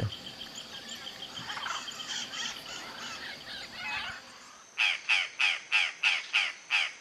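Purple jay (Cyanocorax cyanomelas) giving a rapid series of harsh, crow-like caws, about three a second, starting nearly five seconds in. Before that there is only a faint outdoor background.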